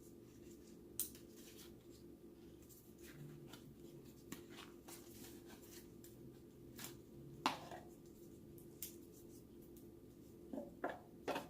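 Faint handling sounds of a smartwatch box being unpacked: a few scattered clicks and taps of packaging, loudest near the middle and in a cluster near the end, over a steady low hum.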